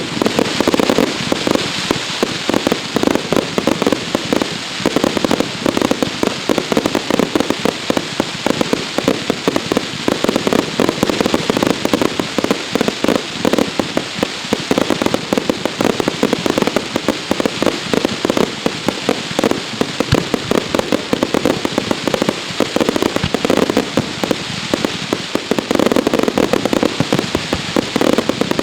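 Fireworks display: a dense, continuous barrage of rapid bangs and crackling firecracker reports.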